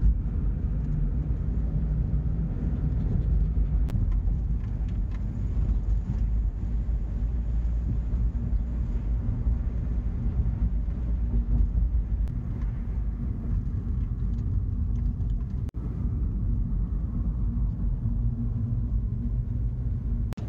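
VW Transporter T4 van on the move, heard from inside the cab: a steady low engine and road rumble that briefly cuts out about three-quarters of the way through.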